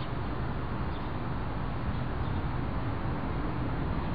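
Steady low outdoor rumble of background noise, with a couple of faint short high chirps in the first second or so.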